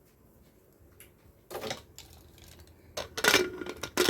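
Metal clanks and clatter from a pressure cooker being handled. There is a knock about one and a half seconds in, then louder clanks with a short ring near three seconds and another near the end.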